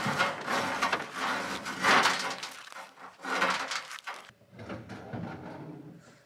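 Rustling and scraping as a rope is coiled and handled against sheet metal loaded in a pickup bed, in several loud bursts with a short break about four seconds in.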